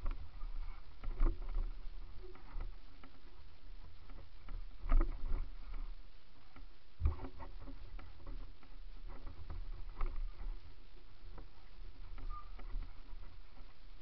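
Mountain bike riding fast down a dirt trail: steady wind rumble on the camera microphone, with the bike rattling and knocking over bumps and stones. The loudest knocks come about a second in, around five and seven seconds in, and again about ten seconds in.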